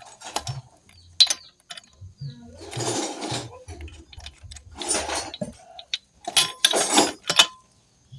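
Metal clinks, clicks and short scraping sounds of tools and small parts being handled while fitting a motorcycle's spark plug and ignition parts; the engine is not running.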